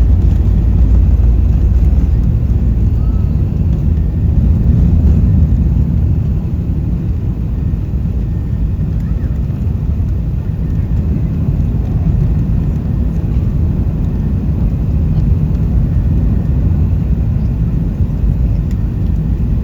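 Steady low rumble of an Airbus A380's engines and airflow, heard inside the passenger cabin.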